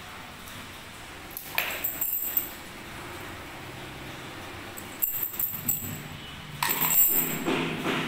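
Ring of steel door-lock keys and metal lock fittings clinking and jingling in the hand, in three short spells about one and a half, five and seven seconds in.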